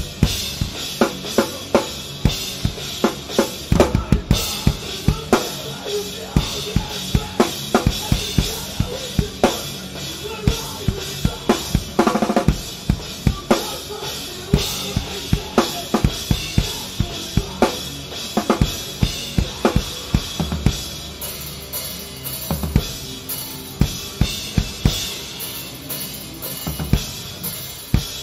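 A Tama drum kit with Meinl cymbals played live in a steady rock beat, with bass drum and snare hits about twice a second and a fast fill roughly midway through. It is recorded close on the kit.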